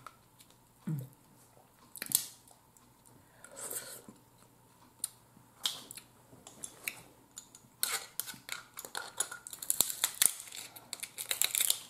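Boiled blue crab shells being cracked and picked apart by hand, with scattered sharp snaps and crunches at first, then a dense run of crackling and clicking from about eight seconds in as a claw is worked with a metal crab cracker.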